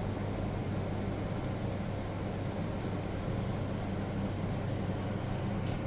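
A steady low mechanical hum, like a fan or air-conditioning unit running, with a few faint light clicks.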